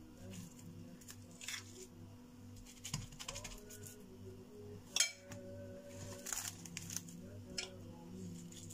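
Metal spoon scraping and tapping as it spreads a moist grated-carrot mixture over plastic wrap, with scattered soft clicks and one sharper clink about five seconds in. A steady low hum runs underneath.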